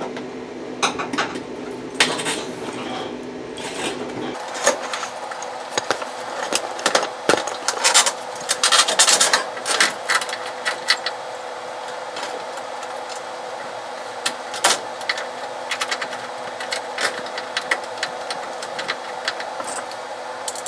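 A parking brake cable and its metal end fitting being handled and threaded through, giving irregular metallic clicks and rattles that are busiest about eight to eleven seconds in, over a steady faint hum.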